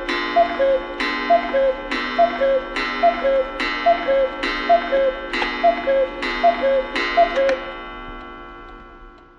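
Clock ticking in an even tick-tock, about two ticks a second, with the tick and tock slightly different in pitch and each leaving a ringing tail. The ticking stops near the end and the ring fades away.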